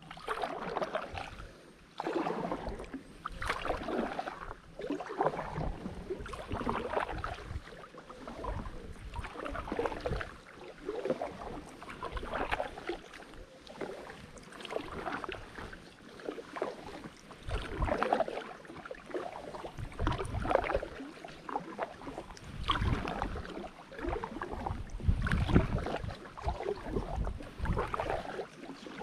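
Double-bladed kayak paddle strokes: the blades dip and pull through the water on alternate sides, with splashing and dripping, about one stroke a second.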